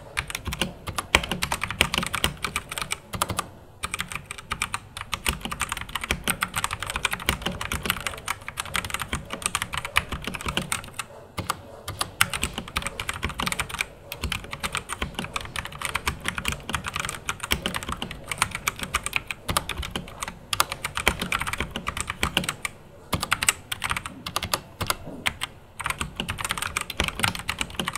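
Typing on a Rexus Daxa M71 Classic mechanical keyboard with Outemu Brown switches: a fast, uneven run of key clacks with a few brief pauses.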